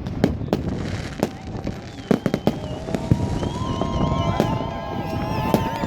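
New Year's fireworks and firecrackers going off, a rapid series of sharp bangs and cracks. From about halfway through, long steady tones and warbling whistles sound over the bangs.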